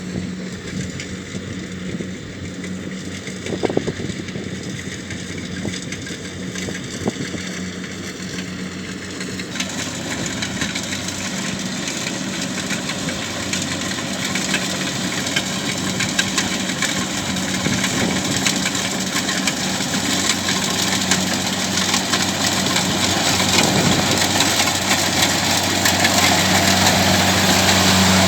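Kubota DC70Plus combine harvester's diesel engine running steadily, with a noisier mechanical rush joining in about ten seconds in; the sound grows louder throughout.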